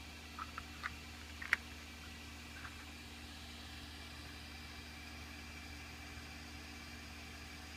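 A few light clicks as a stone cabochon is pressed into a 3D-printed plastic pendant frame, the loudest about a second and a half in, then only a steady low background hum.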